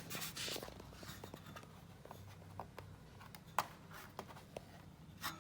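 Faint handling noise as electrical wire is pushed and pulled through a hole in a caravan panel: light scraping with a few small, sharp clicks.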